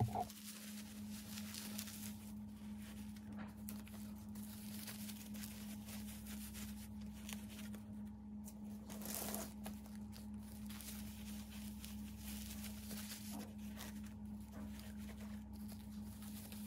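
Soft rustling and crinkling of disposable diapers being rolled and tucked into place, with a few light taps, over a steady low hum.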